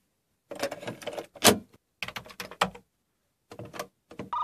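A cassette tape is handled and pushed into a cassette recorder's deck in three rounds of plastic clicks and rattles, with two sharp snaps as it seats and the lid shuts. Just before the end a steady electronic tone starts.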